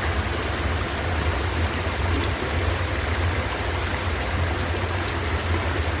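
Waterfall rushing close by: a steady, even rush of water with a deep rumble underneath.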